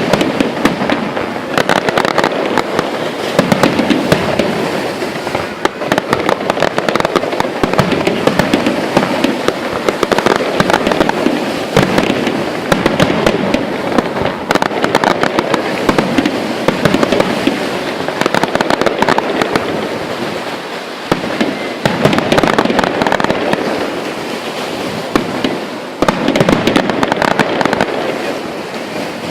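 Fireworks going off in a dense, unbroken crackle of rapid bangs and pops.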